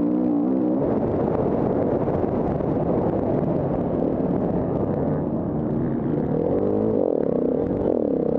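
KTM 350 Six Days enduro motorcycle's single-cylinder four-stroke engine running hard over a rough dirt track, its pitch rising and falling with the throttle. The note turns rough and choppy about a second in, and a clearer revving pitch returns near the end.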